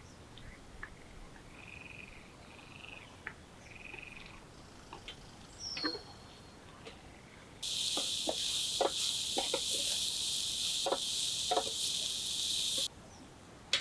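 Frogs calling faintly at a pond in short repeated calls. About halfway through, a loud steady high hiss sets in for about five seconds, with light clicks under it, then cuts off sharply.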